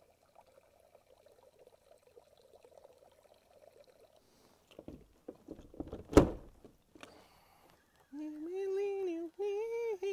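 A faint trickle of liquid running into water. Then a few knocks and one loud, sharp thump about six seconds in. Near the end a man's voice holds two long, wavering sung notes.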